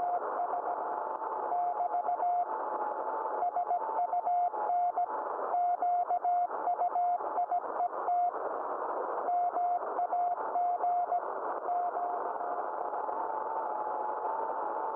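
Morse code (CW) from the DK0WCY aurora beacon, received on the 80-metre band as a keyed beeping tone of dots and dashes over steady shortwave band hiss. It is sending part of its solar report, "SUN QUIET MAGNE…". A fainter, unbroken tone from another signal sits slightly higher in pitch.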